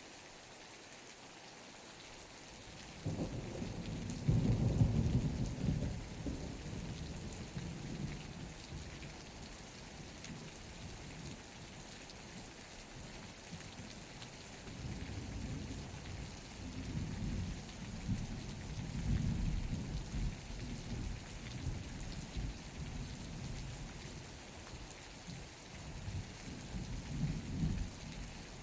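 Steady rain falling, with rolling thunder. A low rumble sets in about three seconds in, peaks soon after and dies away, then more rumbles roll through the second half.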